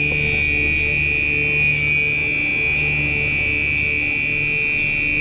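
Gentex Commander 3 fire alarm horn sounding on continuous: a loud, steady, high-pitched electronic tone with no pulsing, over a low hum.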